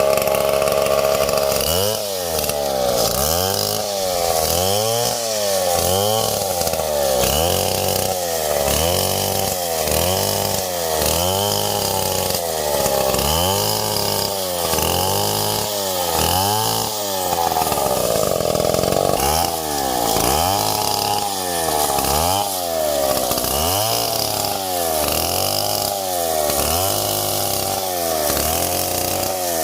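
Two-stroke chainsaw running at high speed, its engine pitch rising and falling about once a second as the revs swing up and down.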